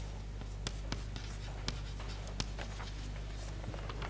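Chalk writing on a chalkboard: a series of light, irregular taps and short scratches as the figures are written.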